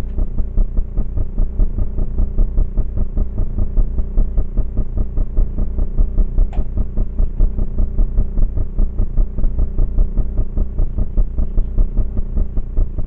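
Steady low machine hum, like a running motor, pulsing several times a second.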